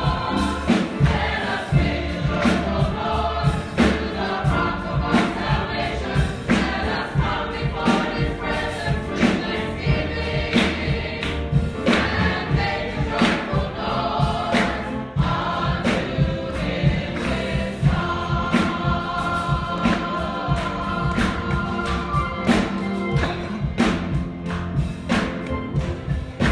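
Church congregation singing a gospel song together, backed by instruments with a steady beat and a strong bass line.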